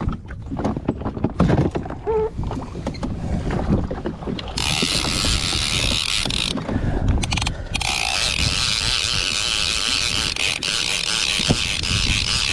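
Jet ski out at sea with rumbling and knocks, then from about four seconds in a loud rushing hiss of wind and spray that drops out briefly and returns. Mechanical clicking of a big trolling reel's ratchet runs under the hiss in the later part.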